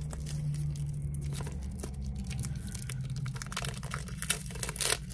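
Tight plastic wrap being picked at and torn off a small cardboard cosmetics box: scattered crinkling and tearing, with a louder crackle near the end.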